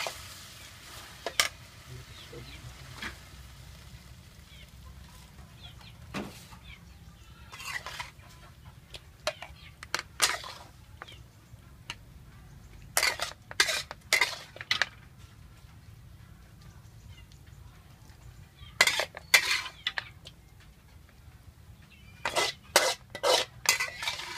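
Metal spatula scraping and clinking against a wok and a plate in short bursts of strokes with quiet gaps between, as stir-fried pork and pineapple is scooped out onto a plate.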